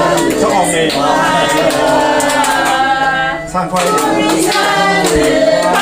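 A group of people singing a birthday song together, with some hand clapping.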